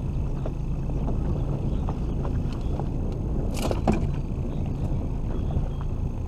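Small outboard motor on an aluminium fishing boat running steadily at low speed, with water and wind noise. A brief clatter comes about three and a half seconds in.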